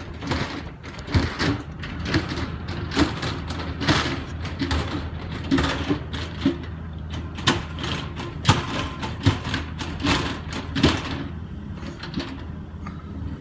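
Excavator digging in frozen ground: the steel bucket repeatedly bangs and scrapes against the frost in sharp, irregular clanks over the steady hum of the engine under load. The bucket is struggling to bite into the frozen ground.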